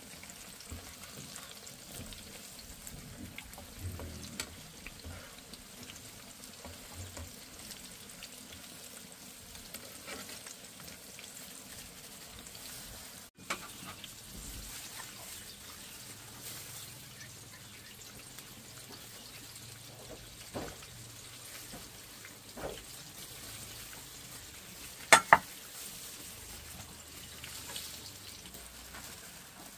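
Banana cake batter frying in hot oil with a steady sizzle and scattered small clicks, broken by two sharp knocks in quick succession near the end.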